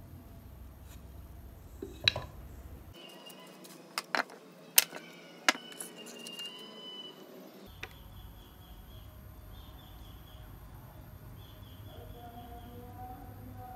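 A handful of sharp wooden knocks and clicks, about two to six seconds in, as the small slatted wooden lantern frame and loose wood strips are handled on a wooden workbench.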